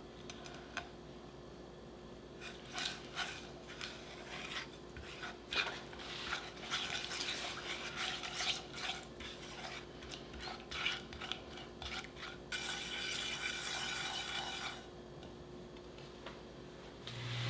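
A kitchen utensil stirring food in cookware, with irregular clinks and scrapes against the pot or pan, then a couple of seconds of steadier scraping.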